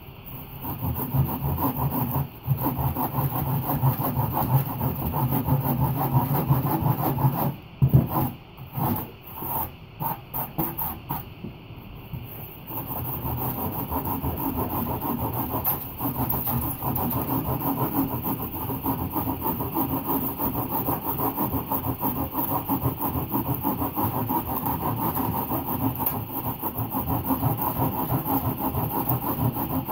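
A hand sanding block scraping back and forth over rigid blue polystyrene foam as it is shaped. It breaks into short separate strokes about a third of the way in, then goes back to steady rubbing.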